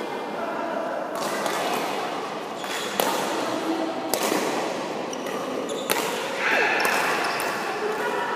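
Badminton rackets striking a shuttlecock in a rally: a series of sharp, echoing hits, the first about three seconds in and then every second or two.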